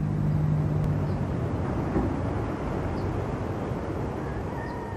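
Outdoor background noise with a low, steady engine hum that fades out about a second in.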